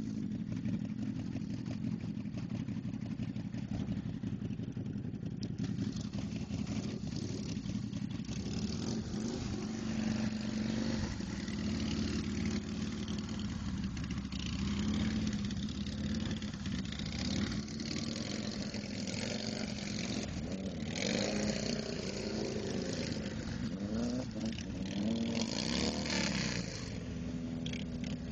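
Motorcycle engine running and being revved up and down again and again, the revs coming more often in the second half, as the rear street tire spins in the snow without traction.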